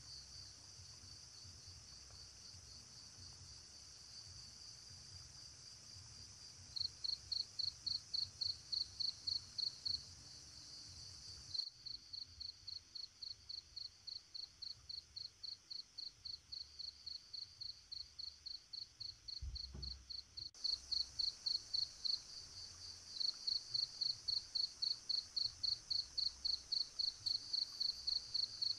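Crickets chirping in an even pulse of about four chirps a second over a continuous high insect trill. The chorus changes abruptly twice as it cuts between recordings.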